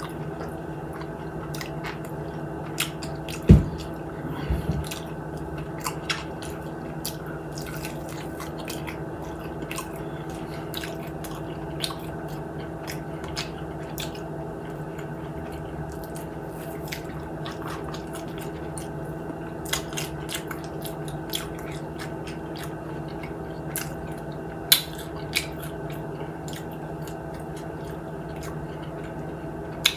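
Close-up chewing and lip smacking of crispy fried chicken wings, with scattered wet clicks and a sharp knock about three and a half seconds in, over a steady low hum.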